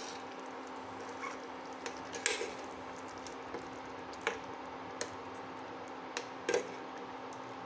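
Metal ladle stirring thick tamarind curry in a stainless steel pot: soft wet squelching, with a few sharp clinks of the ladle against the pot, the loudest about two seconds in and near the end. A steady low hum runs underneath.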